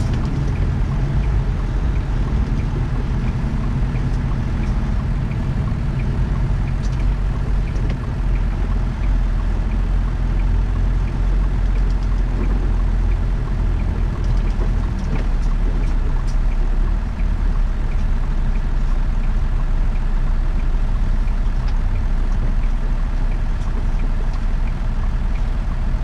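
Semi truck's engine running steadily on the move, a low continuous drone, with faint, evenly spaced ticking above it.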